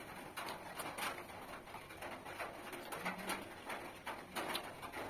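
Close-up mouth sounds of eating rice and curry by hand: irregular wet chewing and lip smacks, with a short low hum about three seconds in.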